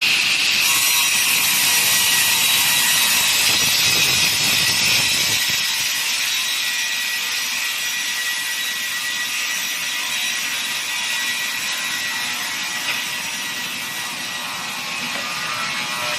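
Multi-blade rip saw running and cutting wood: a continuous sawing noise with a steady high whine. A low rumble underneath drops away about five and a half seconds in, and the saw runs on a little quieter after that.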